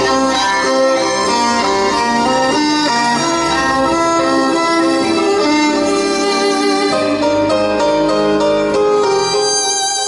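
Violin playing a melody of held notes over a low accompaniment.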